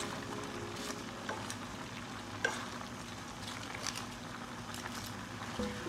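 Chopsuey vegetables being stirred in a hot pot with a spatula: a steady low hiss of cooking, with a few light scrapes and clicks of the utensil.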